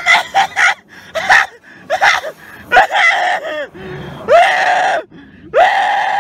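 A person screaming, a string of loud high-pitched shrieks: short ones at first, then longer cries about every second that swoop up at the start.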